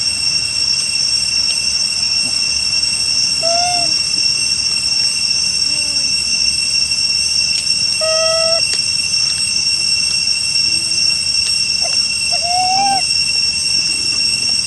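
Steady, high-pitched drone of forest insects, unbroken throughout. Over it come a few short, arching calls: one about four seconds in, one about eight seconds in and one about thirteen seconds in.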